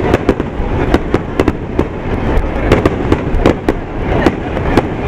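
Aerial firework shells bursting: a rapid, irregular series of sharp bangs and cracks, several a second, over a continuous low rumble.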